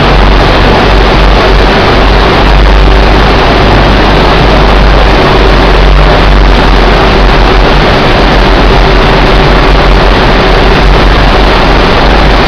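SMI WP450 wraparound carton packer running, a loud, steady mechanical din with a low rumble and a faint steady hum.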